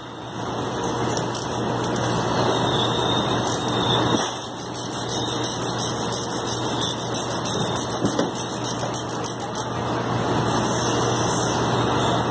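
Steady machinery noise of a fruit packing plant with a low hum that stops about four seconds in. Over it come light, rapid clicks as a manual strapping tensioner is ratcheted to tighten a plastic strap around the pallet.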